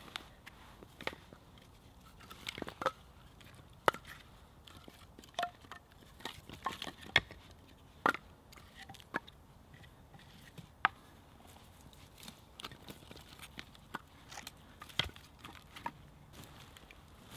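Pieces of freshly split firewood knocking and clacking against each other as they are picked up off the ground and stacked in the arms, in irregular sharp knocks, a few of them loud.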